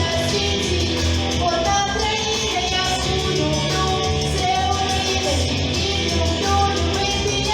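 A song with a voice singing over guitar and a steady bass.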